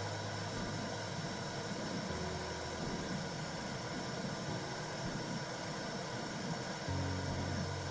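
Recorded womb sound for soothing a baby: a steady low whooshing noise with a deep rumble underneath.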